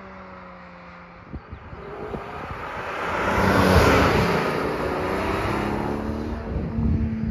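A Porsche 718 Spyder's 4.0-litre naturally aspirated flat-six drives past close by. Its sound swells to a peak about four seconds in as it passes, then settles into a steady engine note as the car pulls away.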